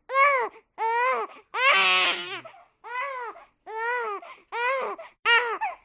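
Baby crying in short, separate wails, about seven in quick succession, each rising and falling in pitch. One longer, harsher cry comes about two seconds in, and the cries after it are a little quieter.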